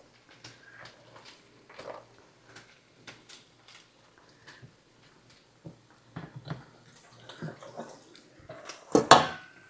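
Metal kitchen tongs lifting cooked angel hair pasta out of a pot: scattered light clicks and taps, growing busier, with one louder clank about nine seconds in that rings briefly.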